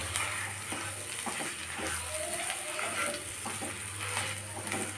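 Wooden spatula stirring and mashing potato dosa filling in a kadhai, with irregular scrapes against the pan over light sizzling from the hot oil.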